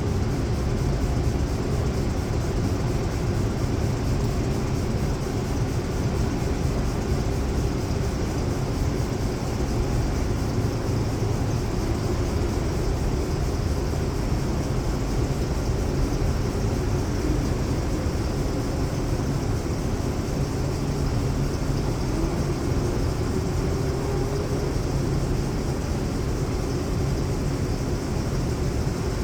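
Elevator machinery running: a steady low drone with faint humming tones, one of which rises slowly about three-quarters of the way through.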